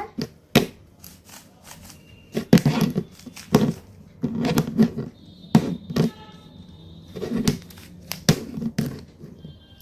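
Plastic 3x3 Rubik's Cube being twisted by hand: bursts of clicking and clacking as its layers turn, in irregular runs.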